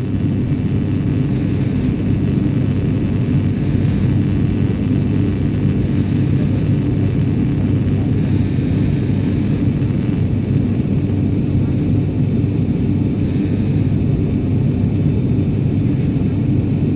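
Steady low rumble of an airliner's engines and rushing air, heard from inside the passenger cabin in flight.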